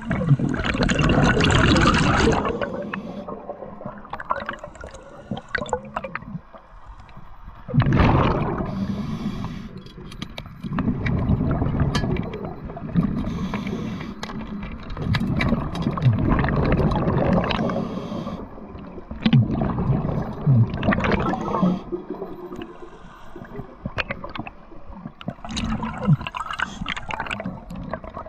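Scuba diver's regulator breathing heard underwater: a loud rush of exhaled bubbles every few seconds, with quieter inhalations between.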